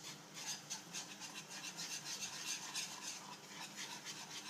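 Wire whisk scraping around a skillet, stirring a thick, thickening cheese sauce in quick, even strokes, about three a second.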